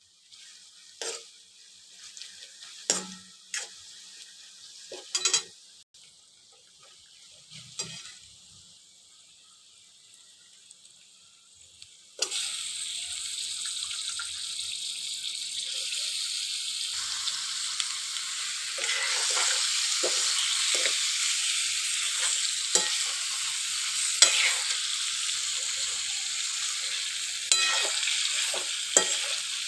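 Onions frying quietly in oil in a metal pan, with a few scrapes and clicks of a steel spoon. About twelve seconds in, raw chicken pieces go into the hot oil and a loud steady sizzle starts suddenly; the spoon keeps stirring and scraping the pan through the sizzle.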